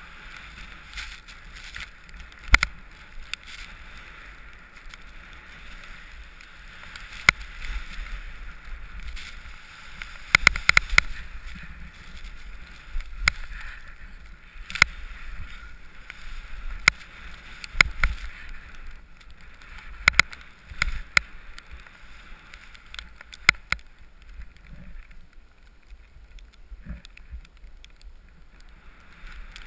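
Skis hissing through deep powder snow at a steady rush, with scattered sharp knocks and clacks that come thickest about a third of the way in and again past the middle.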